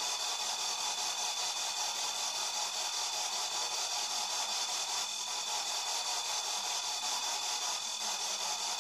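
Steady hiss with a faint high-pitched whine running through it.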